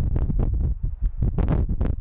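Wind buffeting the camera microphone: an irregular low rumble in gusts, with sharp pops several times a second.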